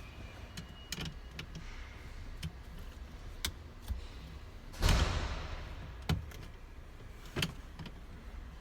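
Scattered clicks and knocks of hand tools and plastic trim being handled in a car's cabin, with one louder clattering knock about five seconds in and two sharper knocks after it.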